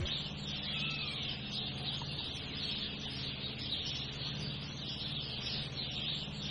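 Outdoor ambience: a steady hiss over a low hum, with a few faint short bird calls.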